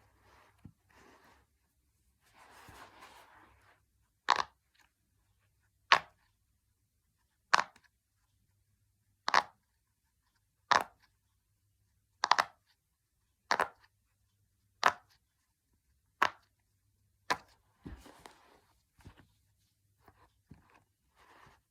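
Silicone Pop It fidget toy bubbles being pushed in one at a time: about ten sharp pops, roughly one every second and a half, with soft handling rustle before and after them.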